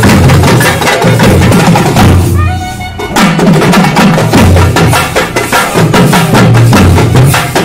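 A procession drum group of double-headed barrel drums and side drums beaten with sticks in a fast, dense rhythm. About two seconds in, the drumming breaks off for under a second, a short high tone sounds, and then the drumming picks up again.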